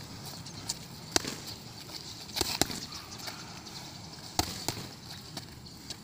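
Boxing gloves smacking focus mitts in sharp, irregular slaps. There is a single hit about a second in, a quick double a little after two seconds, and another double after four seconds.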